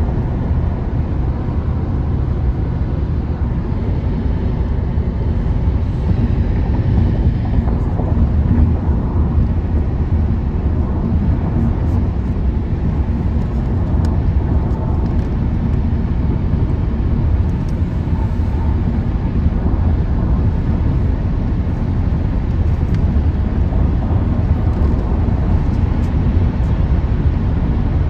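Road noise inside a car's cabin at freeway speed: a steady low rumble.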